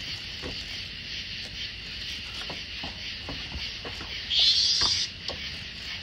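A cicada gives a loud buzz lasting about a second, some four seconds in, over a steady high insect drone. Scattered light taps and clicks come from a puppy's claws on wooden deck boards.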